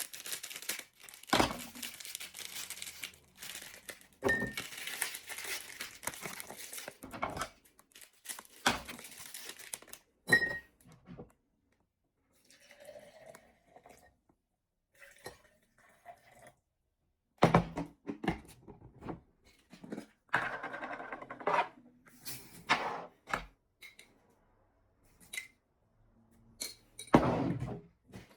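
Food-preparation handling noises: crinkling and tearing rustles in spells, with sharp knocks, and a quiet stretch midway.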